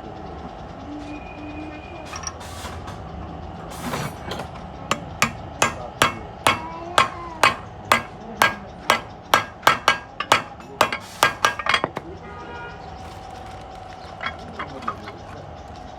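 A hammer striking repeatedly: a run of about twenty sharp blows starting about five seconds in, coming faster near the end, then stopping. A faint steady hum runs underneath.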